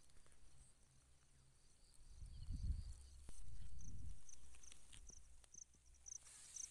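Outdoor field ambience: a faint high chirping repeats evenly a few times a second, clearest in the second half. Two low rumbling swells come about two and a half and four seconds in, buffeting the phone's microphone.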